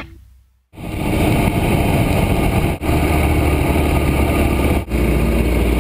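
Motorcycle engine running at low, steady revs, heard through the bike-mounted camera's microphone with a constant rushing noise. The sound starts under a second in and dips briefly twice.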